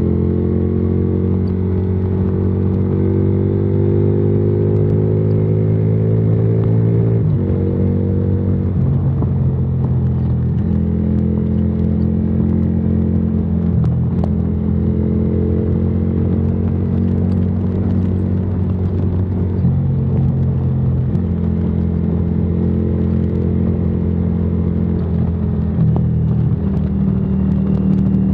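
Yamaha Virago XV535's V-twin engine, running through a debaffled exhaust, pulls under throttle with its pitch rising for about seven seconds. The pitch then drops suddenly at a gear change and holds fairly steady, with small rises and falls as the throttle is worked.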